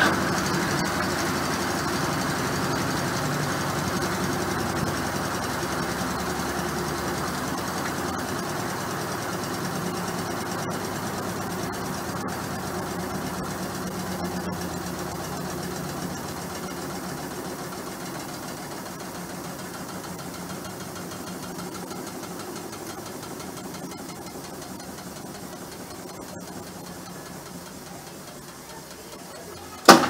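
Brastemp BWK15 top-load washing machine winding down at the end of its spin after the wash: a steady motor and basket hum that slowly fades as the basket slows, with a sharp click at the very end.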